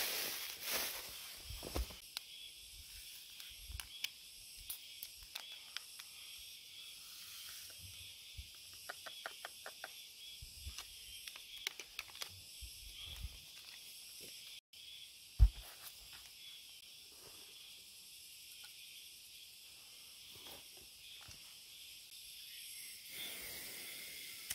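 Faint outdoor ambience with a steady high hiss, crossed by small clicks and rustles of handling. A plastic bag crinkles in the first second, and one sharp knock about fifteen seconds in is the loudest sound.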